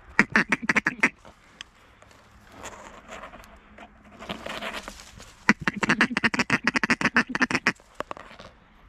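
Rapid runs of duck quacks, about seven a second: a short run at the start, a rougher stretch around the middle, and a long run from about five and a half seconds to nearly eight seconds.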